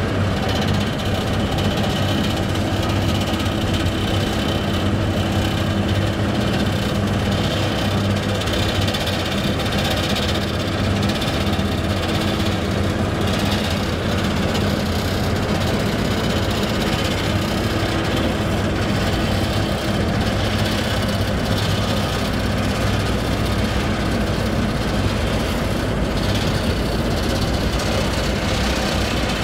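Asphalt paver's diesel engine running steadily while it lays asphalt, a continuous heavy engine hum. A higher note in the hum drops away about two-thirds of the way in.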